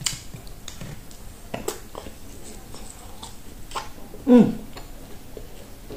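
Close-up chewing and gnawing on bone, with scattered sharp cracks and crunches. About four seconds in, the eater makes a short vocal sound that falls in pitch, the loudest moment.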